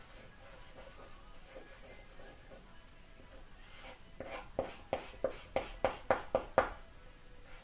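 A soft drawing stick scratching on paper: faint rubbing for the first half, then a quick run of about ten hatching strokes, roughly four a second, before it stops near the end.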